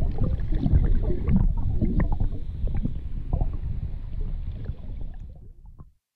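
Muffled underwater rumble with scattered clicks and crackles: water moving around a submerged camera. It dies away just before the end.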